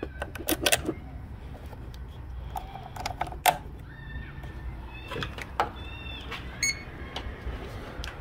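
Handling clicks and taps from a handheld power-probe circuit tester as it is moved around the battery and fuse box, with a short electronic beep a little after six seconds in.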